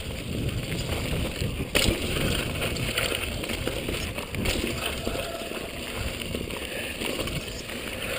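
Mountain bike rolling fast down a rough dirt trail: steady tyre noise and rattle of the bike, with wind on the microphone and a sharp knock about two seconds in.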